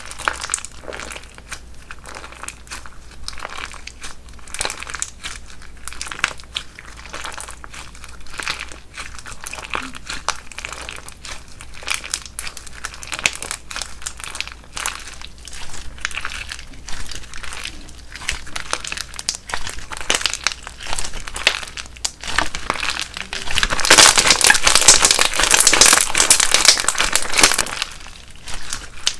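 Crunch slime being squeezed and pressed by hand, giving a steady run of small crackles and pops. Near the end it gets louder and denser for several seconds.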